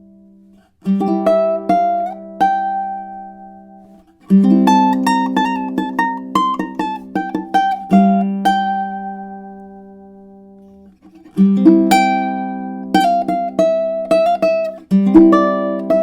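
Tenor ukulele with a spalted tamarind back and sides and a bearclaw spruce top, played improvised with no audio effects: quick runs of plucked notes over chords, in four phrases, with chords left to ring out and die away between them.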